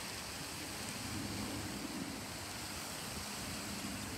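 Steady outdoor background noise: an even hiss with a soft low hum underneath, and no distinct events.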